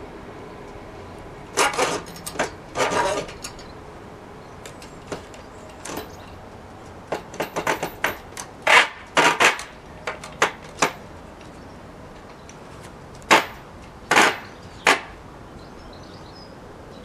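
Irregular sharp knocks and clatters, a few with a brief ring, from a metal mill rail and its wooden supports being handled and fixed in place.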